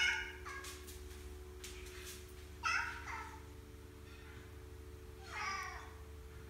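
Tabby cat meowing in short calls, one at the very start, a double call about three seconds in and another near the end, while eyeing the top of a door to jump onto.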